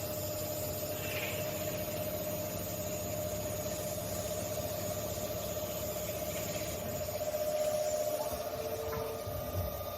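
Automatic machining center running: a steady machine hum and hiss with a constant whine. It swells a little about three-quarters of the way through, and near the end there is a brief lower tone and a small click.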